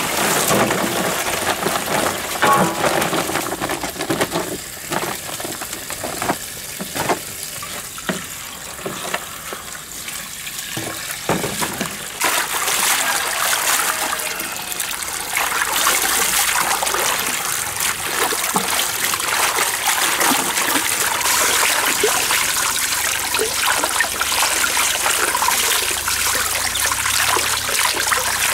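Water running from a hose into a large metal basin full of leafy greens, with splashing and swishing as hands wash the leaves. Quieter with scattered knocks at first, then the splashing grows louder and steadier from about twelve seconds in.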